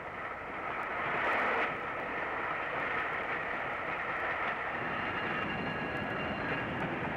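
LNER A3 Pacific steam locomotive Flying Scotsman under way just after departure: a steady rush of steam and running noise that swells briefly about a second in.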